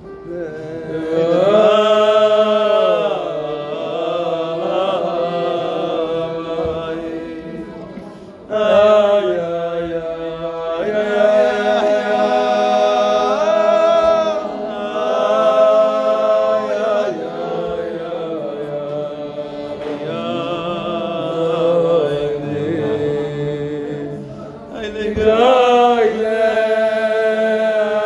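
Men's voices singing a slow Jewish devotional melody (niggun) in long, drawn-out phrases, with short breaks about eight and twenty-five seconds in.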